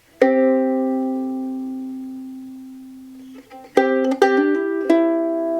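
Freshly strung soprano ukulele with an Adirondack spruce top and Tasmanian blackwood back and sides being played: a chord rings out and slowly dies away, then a few quicker chords follow near the end and ring on, with reverb added.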